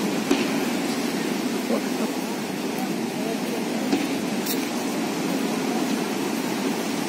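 Steady murmur of a large outdoor crowd talking, no single voice standing out, with a couple of faint pops.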